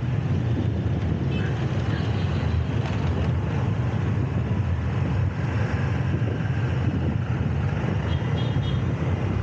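Steady city street traffic heard while riding along, with a constant low rumble of engines and road noise. A few faint short beeps come near the end.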